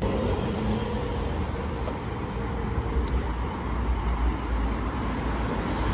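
Steady road traffic noise with a deep rumble and hiss, cutting off suddenly near the end.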